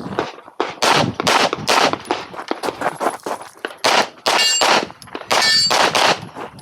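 Rapid strings of handgun shots fired during a USPSA competition stage, with short pauses between groups. Twice, at about four and a half and five and a half seconds in, a struck steel target rings out after the shot.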